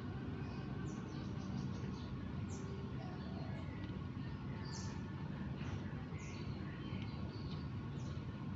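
Small birds chirping: many short, high, quick chirps scattered throughout, over a steady low hum.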